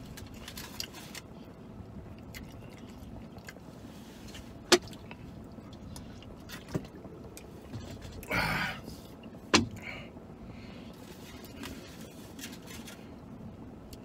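A person eating in a vehicle cabin: faint chewing and handling of a burrito and a small salsa cup over a low steady cabin hum, with two sharp clicks and a brief rustle about halfway through.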